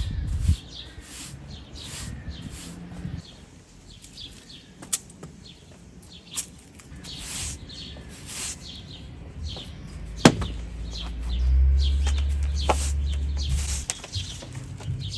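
Small birds chirping repeatedly, with a sharp knock about ten seconds in and a steady low hum for a couple of seconds after it.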